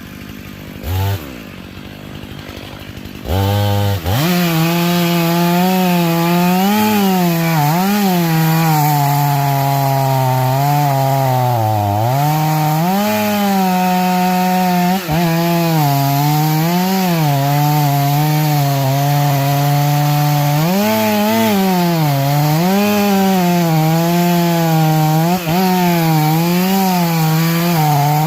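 Chainsaw idling with a short blip of throttle about a second in, then revved to full speed about four seconds in and cutting wood. Its engine pitch repeatedly dips and recovers as the chain works in the cut.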